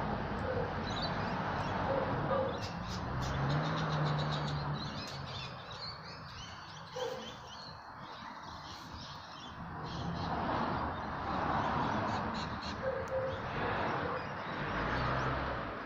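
Birds chirping and calling over an outdoor wash of noise that swells and fades every few seconds.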